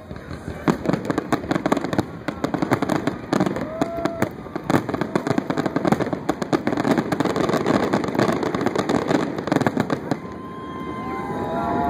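Aerial fireworks in a rapid barrage of overlapping bangs and crackling, typical of a show's finale. About ten seconds in the bangs stop and crowd noise rises.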